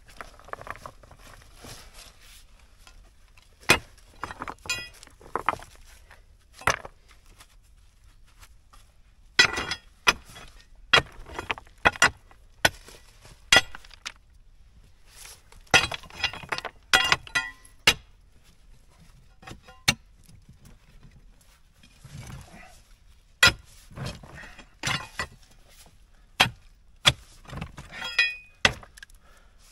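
Steel pry bar striking and levering stones in a rocky crevice: irregular sharp metallic clinks and knocks, some in quick clusters, with loose stones rattling.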